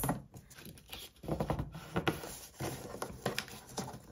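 Sheet of cardstock being folded along its score lines and creased flat by hand: irregular paper rustles, scrapes and light taps.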